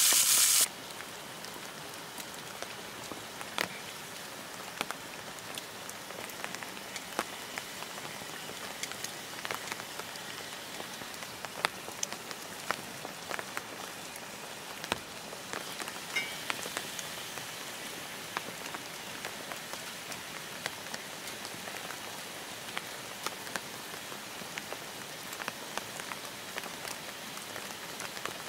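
Pork belly sizzling loudly in a cast-iron skillet, cut off under a second in. Then steady rain falling, with many separate drops ticking sharply through it.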